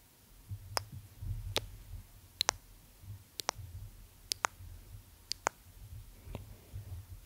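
Close-mic mouth clicks, lip and tongue sounds made right against the microphone: sharp clicks about once a second, several in quick pairs, over a faint low rumble.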